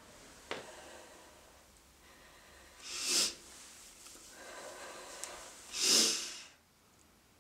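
A woman crying: two loud, sharp sniffling breaths about three seconds apart, with quieter breathing between them.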